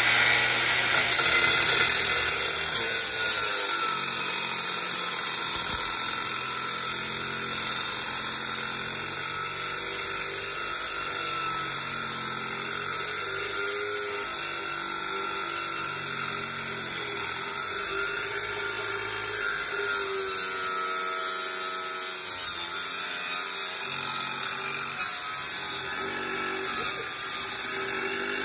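Angle grinder with a cut-off wheel running steadily as it cuts through the metal casing of a small compressor, its whine wavering in pitch as the wheel bites into the cut.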